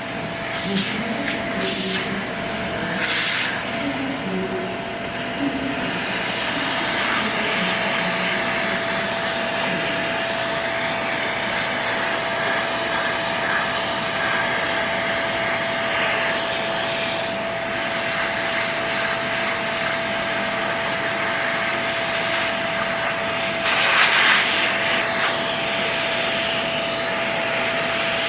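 Vacuum cleaner running steadily, its motor giving a constant whine over the rush of air, with a brief louder surge about 24 seconds in.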